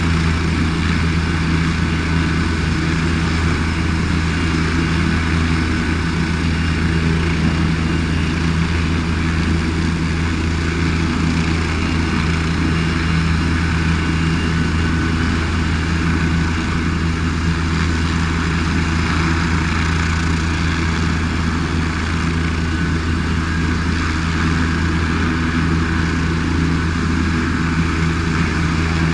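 Helicopter running steadily, a constant low hum that holds the same pitch throughout.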